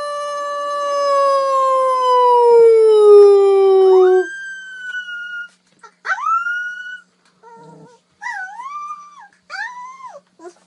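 A puppy howling: one long, loud note that slides slowly downward for about four seconds, then several shorter howls that rise and waver, with short pauses between them.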